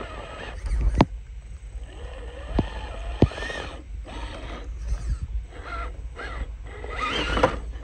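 Element Enduro RC rock crawler's electric motor whining up and down in pitch with the throttle as the truck climbs rock, with a few sharp knocks of tyres or chassis against the stone. Low wind rumble on the microphone.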